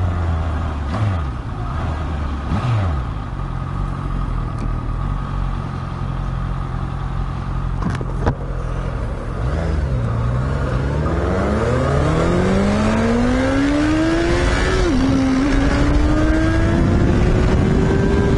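Motorcycle engine running at low revs, then from about ten seconds in revving up steadily under hard acceleration, with one upshift that briefly drops the pitch near the end, over wind and road noise. A single sharp click about eight seconds in.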